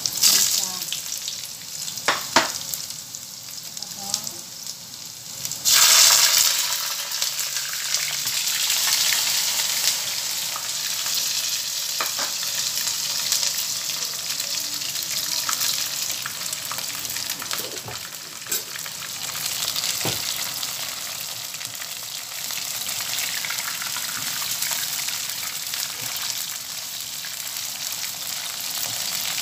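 Hot oil sizzling in a wok as green onion pieces drop in. About six seconds in, a sudden, much louder sizzle comes as raw shrimp go into the oil, and it settles into steady deep frying. A few light clicks of utensils sound against the pan.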